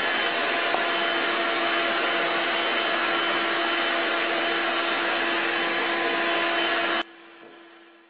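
Vacuum cleaner running steadily with a whining hum, dropping off sharply about seven seconds in.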